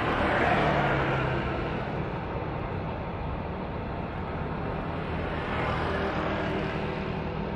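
Boeing 777-300ER's GE90 turbofan engines running at taxi power as the airliner rolls past, a steady jet engine noise with a low hum. It is loudest about half a second in and swells again briefly around six seconds in.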